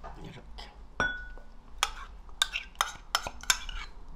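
Metal spoon clinking and scraping against a small ceramic bowl as thick seasoning sauce is scraped out of it: one ringing clink about a second in, then a run of short taps and scrapes.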